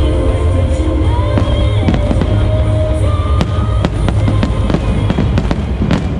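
Aerial fireworks going off in a rapid, irregular string of bangs and crackles over a constant low rumble, with music playing alongside.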